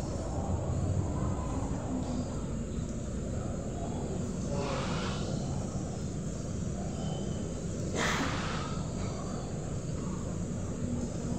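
Steady low outdoor background noise, with two brief rushing sounds about four and a half and eight seconds in.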